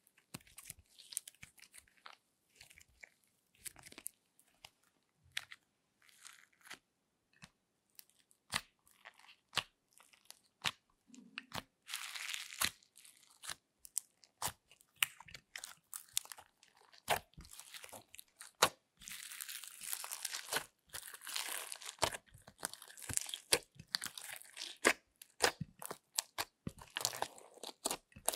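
Fluffy slime being stretched, pressed and squished by hand in a glass dish, giving sticky clicks and crackles. The crackling grows denser in the second half as the slimes are mashed together with glitter and beads.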